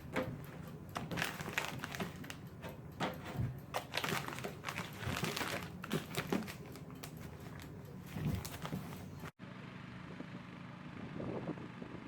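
Roofers working on a house roof: rapid, irregular knocks and clacks of shingles being nailed down and handled. It cuts off sharply after about nine seconds to a quieter stretch with only a few faint knocks.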